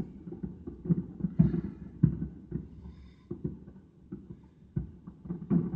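Fireworks exploding in a burning warehouse, heard from far off: about a dozen low, muffled booms at irregular spacing, thinning out in the middle and picking up again near the end.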